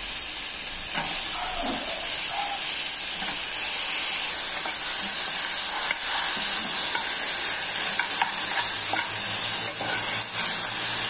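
Cambuci peppers and onion sizzling in hot oil in a pan: a steady high hiss. A metal spoon stirs them, scraping and clicking against the pan now and then.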